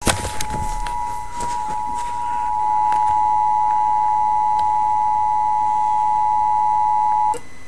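Emergency Alert System attention signal from a TV: a steady two-tone alert (853 and 960 Hz) that cuts off suddenly about seven seconds in. A few sharp clicks in the first couple of seconds.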